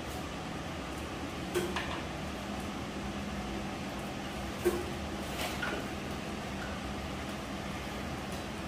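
Steady hum in the shop with two short, sharp metal clinks, about one and a half seconds and four and a half seconds in. The clinks come as the small-block engine hanging on the hoist chain is guided down into the truck's engine bay.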